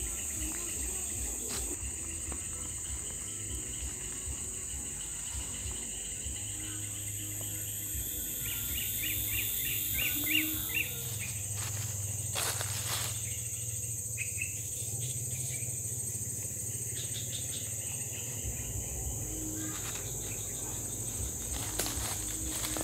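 A steady, high-pitched drone of insects, with a quick run of bird chirps about nine seconds in.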